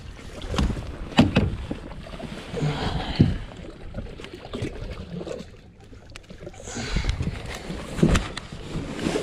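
Scattered knocks and thumps on the deck of an aluminium bass boat as a landed fish is handled in a landing net, with several sharp knocks early and one more near the end.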